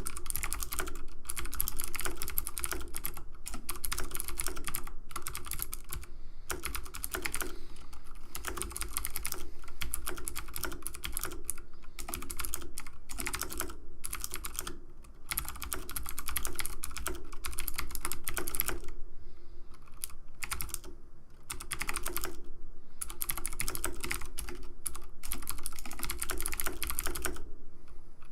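Rapid, dense clicking in long runs, broken by a few brief pauses.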